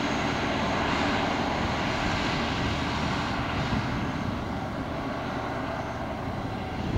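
Steady vehicle noise: engine rumble and a wide even hiss of tyres and wind, with no breaks.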